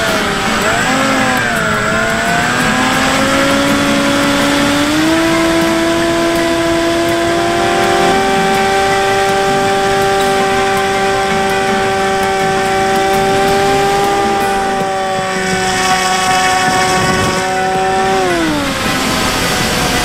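Electric motor and propeller of a Bixler 3 RC plane in flight, with wind rushing past the camera under the wing. The whine wavers in pitch at first, steps up over the first eight seconds and holds steady. It then drops near the end as the throttle is cut back.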